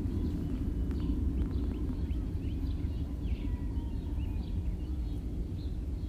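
A steady low rumble from the sky, with small birds chirping over it.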